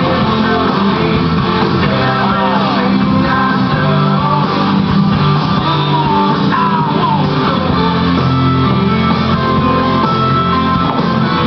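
Rock music with guitar, playing steadily and loud throughout.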